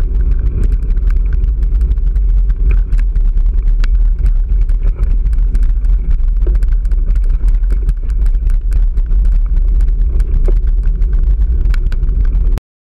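Wind rumble on a bicycle-mounted camera's microphone while riding, with frequent clicks and rattles from the bike rolling over rough, broken pavement. Cuts off suddenly near the end.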